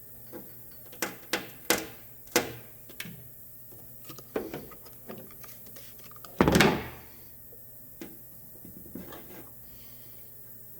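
Sharp taps on an aluminum door panel, about five in the first three seconds, then a single louder thump about six and a half seconds in. Typical of tapping down an over-pulled high spot after a glue pull.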